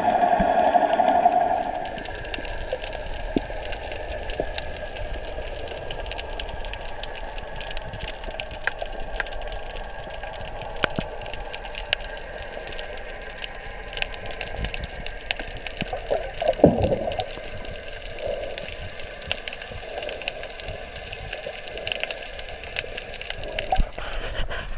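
Underwater reef ambience through a GoPro's waterproof housing: a steady hiss full of scattered sharp clicks and crackles, the sound of snapping shrimp. It is louder for the first second or so, and a brief louder swirl of water passes about two-thirds of the way through.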